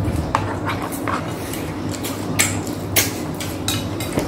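Eating close to the microphone: chewing and lip smacks, heard as scattered short sharp clicks, with a light spoon clink, over a steady low hum.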